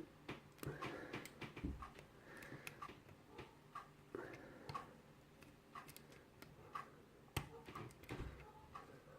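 Faint, irregular small metallic clicks and ticks of a hook pick working the pins of a mortise lock cylinder held under a tension wrench.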